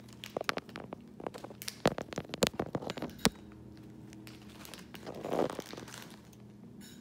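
Plastic snack wrappers crinkling as they are handled, with a quick run of sharp crackles in the first three seconds and a brief softer rustle about five seconds in.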